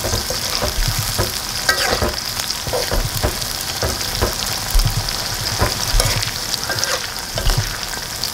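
Sliced onions and green chillies sizzling in hot oil in a metal wok, with a steady hiss. A metal ladle scrapes and clinks against the wok as they are stirred, about once or twice a second.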